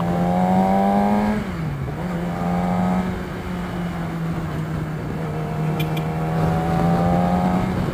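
Yamaha R6 inline-four with an Akrapovic exhaust running at steady part throttle on the move. The engine note dips briefly about one and a half seconds in, then holds steady and rises slowly near the end.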